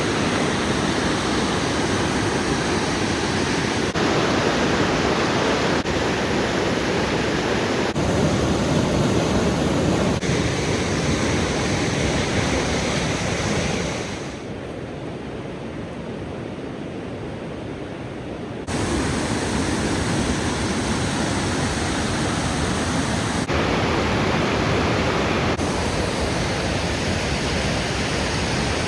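Steady rushing of a waterfall running high with spring snowmelt. The sound shifts abruptly several times as shots change, and goes quieter and duller for about four seconds in the middle.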